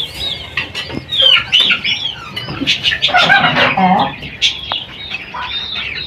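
Aviary full of small parrots, lovebirds and budgerigars, chattering: many short, high chirps and squawks overlap throughout, with a louder, lower call about three seconds in.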